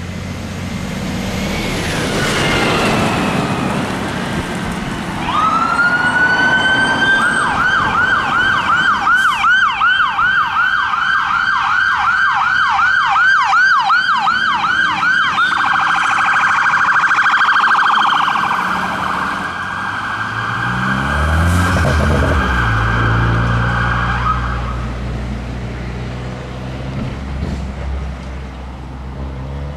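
A new Volvo fire engine's electronic siren comes on with a rising tone, yelps rapidly about two to three times a second, switches about halfway through to a faster warble, then cuts off. Under the last part the truck's big diesel engine pulls away, climbing in pitch before settling to a steady drone.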